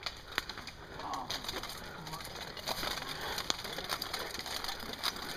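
Footsteps crunching over twigs and leaf litter on a woodland floor, with irregular sharp knocks and rustling from a hand-held camera carried on the move.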